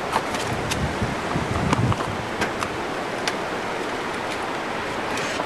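Steady rushing outdoor noise with scattered light clicks, and a few low bumps about one and a half to two seconds in.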